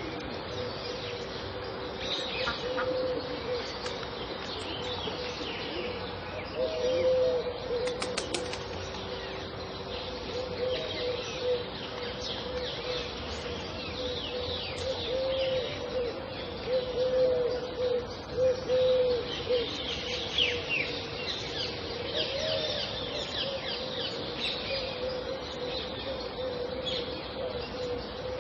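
Pond ambience with several kinds of birds calling: many quick high chirps and trills, and low, arched calls repeating over a steady low tone.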